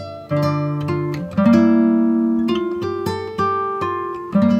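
Acoustic guitar music: plucked and strummed chords struck about once a second, each ringing out and fading before the next.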